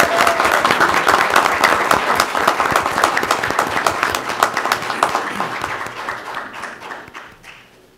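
Applause: many people clapping their hands in a room, dying away over the last couple of seconds.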